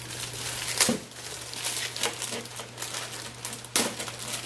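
Small plastic bags of computer-case screws crinkling as they are handled, with a few sharp clicks and knocks, the loudest about a second in and near the end. A steady low hum runs underneath.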